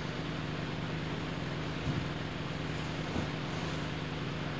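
Steady low background hum with an even hiss, and two faint soft knocks about two and three seconds in.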